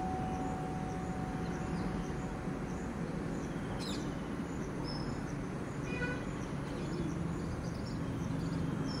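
Steady outdoor background noise, with a struck bell's ringing dying away over the first few seconds. Faint bird chirps are heard here and there.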